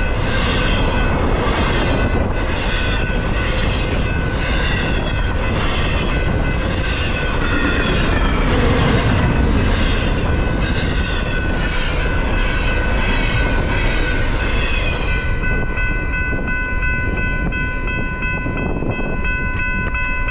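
Double-stack container freight train rolling through a level crossing, its wheels clacking over the rails in a steady rhythm, while the crossing's warning bell rings without pause. About fifteen seconds in, the last car clears and the rumble falls away, leaving the bell ringing on its own.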